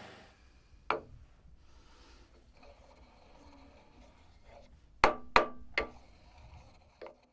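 Boxwood pestle knocking inside a freshly turned boxwood mortar: a single wooden knock about a second in, faint rubbing, then three sharp knocks in quick succession about five seconds in and a lighter one near the end.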